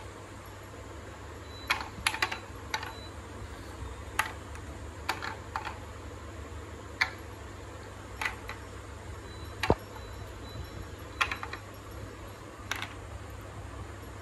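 Plastic balls clacking and knocking along the wooden ramps of a wall-mounted ball-run toy: about a dozen sharp, scattered clicks, some in quick clusters of two or three, over a steady low hum.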